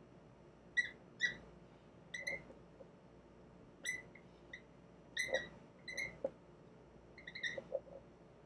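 Dry-erase marker squeaking on a whiteboard while writing: a dozen or so short, high-pitched squeaks at irregular intervals, one for each stroke of the pen.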